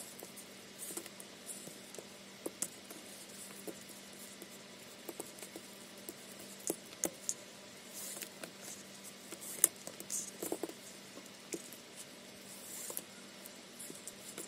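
Soft rustling and scattered light ticks of macramé cord being pulled through and knotted by hand, over a faint steady hum.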